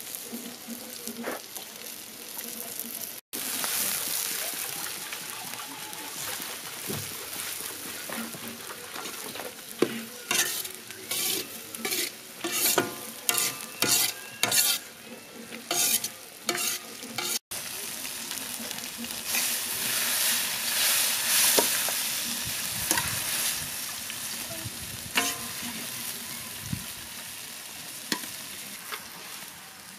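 Sliced onions and carrots sizzling as they fry in oil in a metal wok, with a ladle scraping and stirring them, a run of strokes about two a second in the middle.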